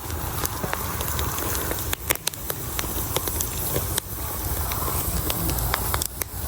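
Campfire crackling and hissing, with frequent sharp pops at irregular moments.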